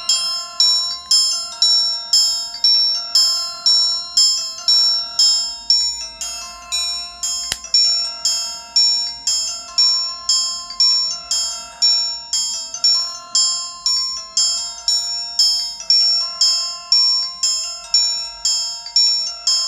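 Nokia 105 (2013) mobile phone playing one of its built-in ringtones: a repeating melody of short, quickly fading notes, about two to three a second. A single click comes about halfway through.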